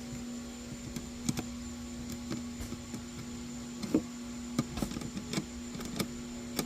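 Irregular light clicks and taps of thin aluminium speaker-bracket tabs being bent and handled, over a faint steady hum.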